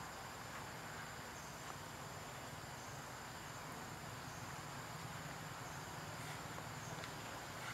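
Steady insect chorus in forest undergrowth: a thin, high, continuous drone over a soft even hiss.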